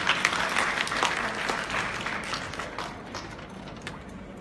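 Audience applauding, dense at first and thinning out over the last second or two.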